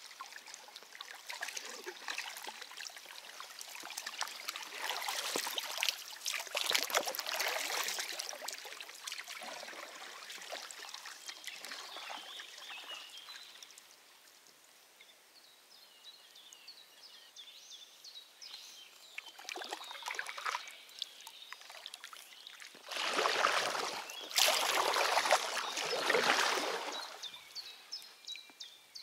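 Water splashing and trickling around a kayak on a small river. It comes in uneven stretches, with the loudest, fullest splashing for a few seconds near the end.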